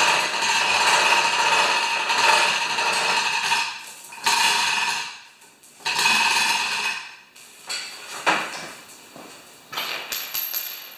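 Hand chain hoist lowering a raised lawn tractor: the hand chain rattles through the hoist with clicking from its ratchet mechanism, in three spells that end about seven seconds in. A few separate metallic clanks follow.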